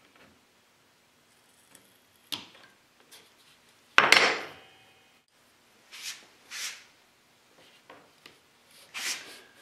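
Wood pieces and hand tools being handled on a bench: a handful of knocks and short scrapes, the loudest a knock with a scrape about four seconds in.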